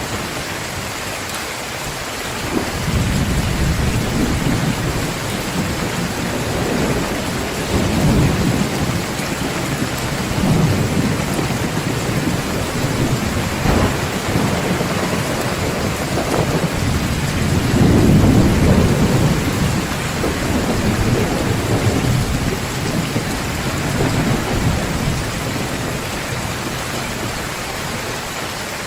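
Heavy rain falling steadily, with thunder rumbling in long low swells from a few seconds in, loudest a little past the middle and easing toward the end.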